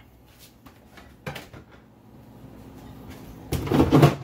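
Refrigerator door and its contents being handled. There is a short knock about a second in, then a louder burst of handling noise near the end.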